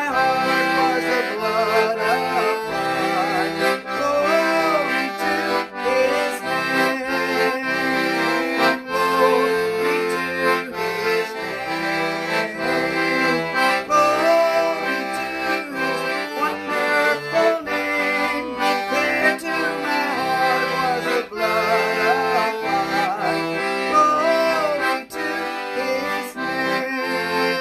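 Piano accordion playing a hymn tune: a melody over an evenly alternating bass-note-and-chord accompaniment.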